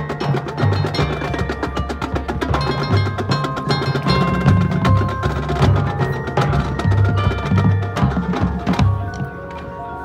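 Marching band playing a percussion-heavy passage: front-ensemble mallet keyboards and drums struck in quick, dense rhythms over a low pitched bass line. About nine seconds in the loud playing drops away, leaving ringing chime-like tones.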